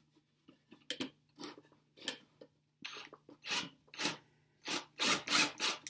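Scraping, rubbing and light knocks of pine boards being handled and pushed into position, sparse at first and coming closer together toward the end. A faint steady low hum runs underneath.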